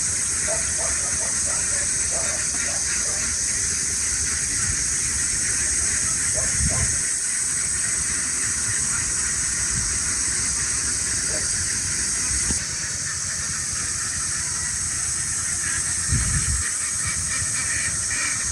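A steady high-pitched hiss, with a slight drop in level about twelve seconds in and a few brief low rumbles like wind on the microphone, about seven and sixteen seconds in.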